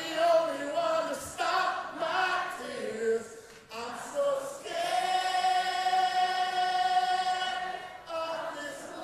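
A man singing a slow ballad solo into a microphone: short phrases that bend in pitch, then one long high note held for about three seconds before it eases off.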